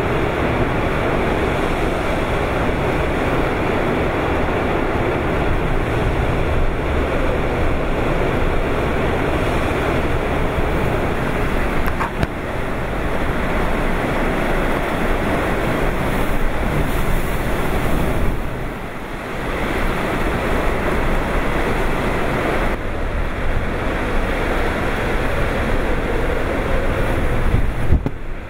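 Typhoon eyewall wind and driving rain: a loud, steady rush of noise that never lets up, dipping briefly a few times.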